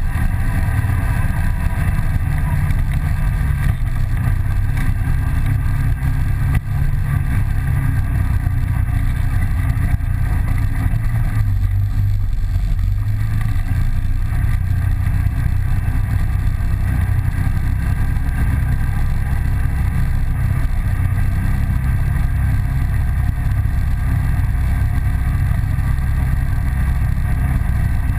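ATV engine running steadily while riding along a trail, a continuous low drone with small rises and dips in pitch.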